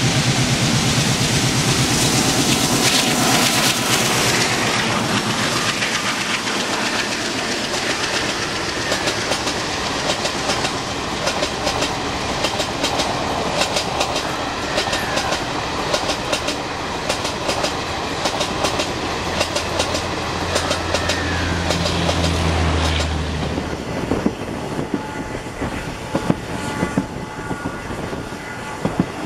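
A WDM-3D diesel locomotive passes close by with its engine running, loudest in the first few seconds. Its passenger coaches then roll past with a rhythmic clickety-clack of wheels over rail joints. About 24 s in, the sound changes to the wheel and rail noise of a moving train, heard from on board as another train passes alongside.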